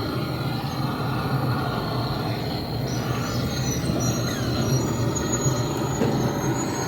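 Blow lamp flame burning with a steady rumbling hiss while it melts heavy ice off a refrigerator's evaporator coil, with faint high squeaky whistles in the second half.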